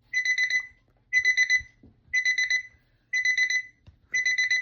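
Electronic alarm clock sounding its beeping alarm: high, piercing beeps in quick bursts of about four, one burst every second.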